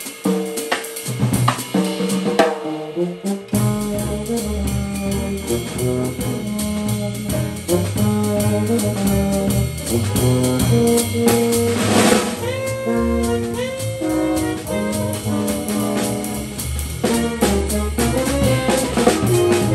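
Small jazz band playing live: tenor saxophone, trombone and euphonium carry the tune together over upright bass and drum kit. For the first few seconds the drums lead with short horn hits, then the bass and full horn lines come in; a cymbal crash rings out about twelve seconds in.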